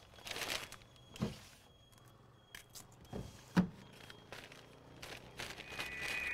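A few soft, scattered knocks and taps over quiet shop ambience, the loudest about three and a half seconds in.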